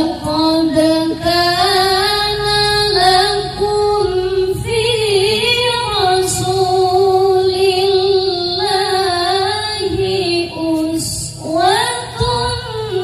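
A female voice singing a sholawat, an Arabic devotional song in praise of the Prophet, in long drawn-out, ornamented notes. Near the end there is a short break before the next phrase rises.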